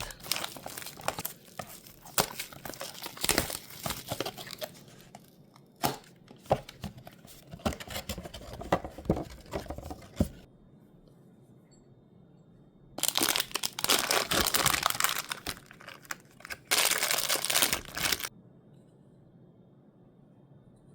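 Mystery toy packaging being crinkled and torn open by hand: about ten seconds of rustling and crinkling with small clicks, then, after a short pause, two loud stretches of tearing, the second one shorter.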